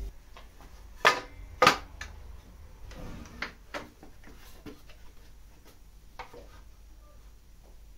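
Handling knocks as a wooden board is set down and pushed into place on a miter saw's table and fence. Two sharp knocks come about a second in, followed by a few lighter taps and clicks. The saw is not running.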